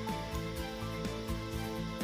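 Instrumental background music with a steady beat and sustained melodic notes.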